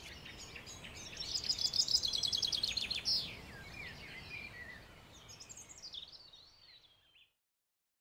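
Songbirds singing in woodland over a faint outdoor hiss: a fast trill of rapidly repeated high notes about a second in, then scattered chirps, fading out near the end.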